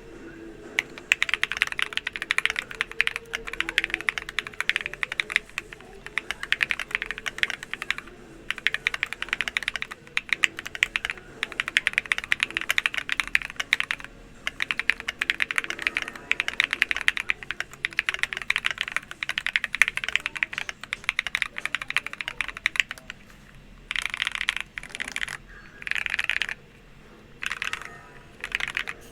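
Typing on an all-aluminium Evo70 custom mechanical keyboard with lubed Glorious Panda tactile switches, Killmat-damped: rapid runs of keystroke clacks broken by short pauses. Near the end it changes to a few shorter, separate bursts.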